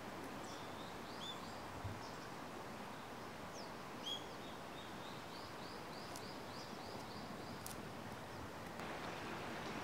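Small songbirds chirping over a steady, faint background hiss, with a run of quick repeated notes, about four a second, in the middle. Two soft knocks are heard early on.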